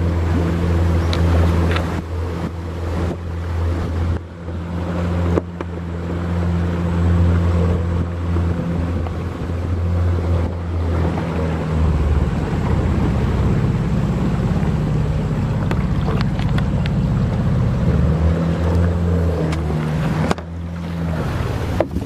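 Outboard motor of a small river boat running steadily under way, over a rush of water and wind. Its engine note changes about halfway through and again shortly before the end.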